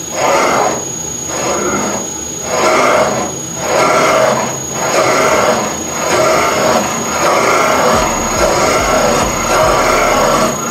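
Seat cutter on a Sunnen VGS-20 seat and guide machine cutting an exhaust valve seat in a Toyota G16E cylinder head. The metal-on-metal cutting squeals in repeated surges as the cutter is fed in and eased off, with a steady high whistle underneath.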